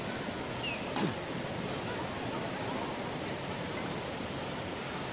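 Steady rushing wash of ocean surf on the beach, with a short, louder sound about a second in.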